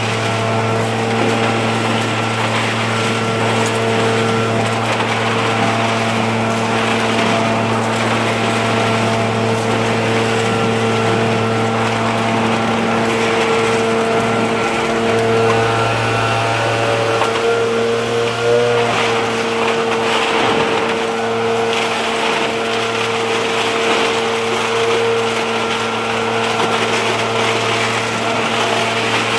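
Small two-stroke engine of a leaf blower running at a steady high speed, its pitch wavering briefly around the middle.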